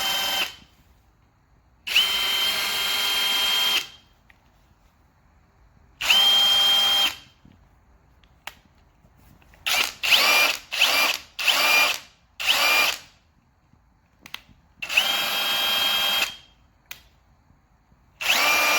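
Ryobi ONE+ HP 18V brushless cordless ½ in. impact wrench (P262) being run in repeated trigger pulls. Its motor whine rises quickly in pitch and holds steady for a second or two at each pull. Near the middle comes a quick run of five short pulls.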